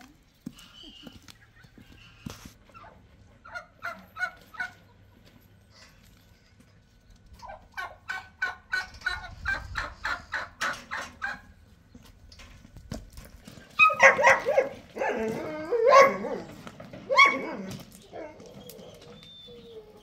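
Domestic turkeys gobbling in rapid rattling runs: a short run about four seconds in, a longer one from about seven to eleven seconds, then louder, more ragged calls in the last third.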